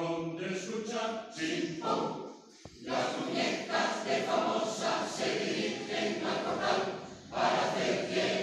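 Mixed choir of men's and women's voices singing, with a brief breath between phrases about two and a half seconds in, after which the singing comes back fuller.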